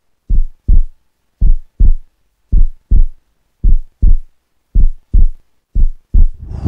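Heartbeat sound effect: six pairs of deep lub-dub thumps, about one pair a second. A rushing swell of noise comes in near the end.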